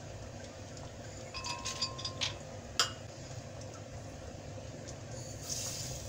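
Almonds dropped into a glass blender jug of dates, several clinking against the glass with a brief ringing, then one sharp tap. Near the end, sugar poured into the jug with a soft, high hiss.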